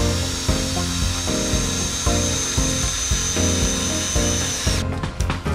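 Background music with a steady beat, over the high whine of a cordless drill-driver running as it drives into the timber floor frame. The whine cuts off shortly before the end, leaving the music.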